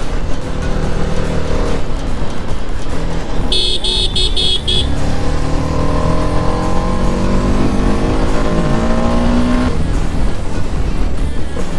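Motorcycle engine running under way with road and wind noise. About four seconds in comes a quick run of short, high beeps, like a horn being tapped; from about six seconds the engine note rises steadily as the bike accelerates, then drops away suddenly near ten seconds as the throttle is shut or a gear is changed.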